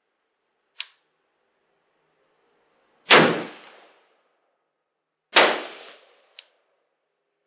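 Arsenal SLR-106UR AK pistol in 5.56 with its Arsenal muzzle brake firing two single shots about two seconds apart, each a loud crack with a ringing tail. A short, sharp click comes before the first shot and another about a second after the second.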